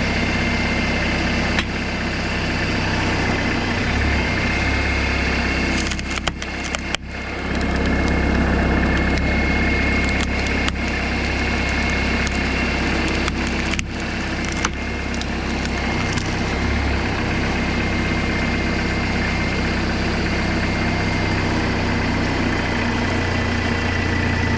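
Tractor engine running steadily to power a homemade hydraulic log splitter, its low note shifting up and down a few times. Logs crack and split sharply under the wedge several times.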